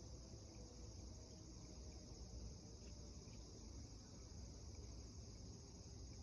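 Near silence: a faint, steady high insect chorus over a low background rumble, with no siren sounding.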